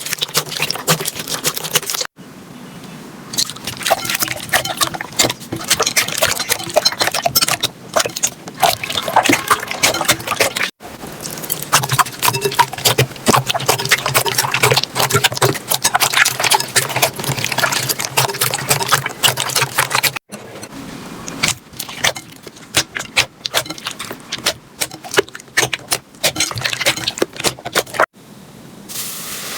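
Slime being squeezed, poked and stretched by hand, giving dense sticky clicking and crackling pops. The sound changes abruptly about 2, 11, 20 and 28 seconds in as one slime gives way to another.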